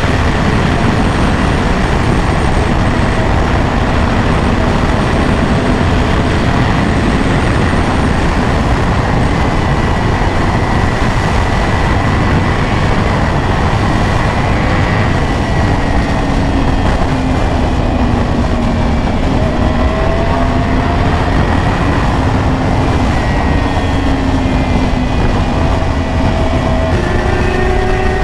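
Wind rushing over a motorcycle rider's helmet microphone with the engine running underneath, its pitch drifting slowly up and down at moderate, traffic-limited speed.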